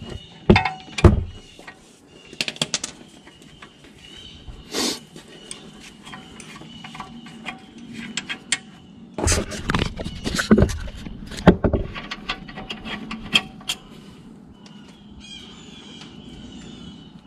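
Metal hand tools clicking and clinking on a brake caliper: a ratchet and socket working a caliper bolt, with scattered knocks of tools and parts being handled. The knocks bunch at the start and again about nine to twelve seconds in, with a faint high chirping between them.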